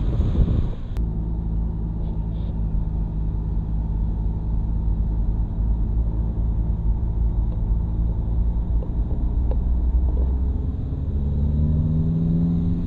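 Car engine and road rumble heard from inside the cabin, a steady low drone; about eleven seconds in the engine note rises as the car speeds up.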